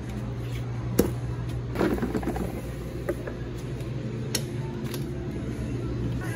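Steady low mechanical hum, with a sharp click about a second in and a brief plastic clatter around two seconds, from a spin mop being handled and lifted out of its bucket.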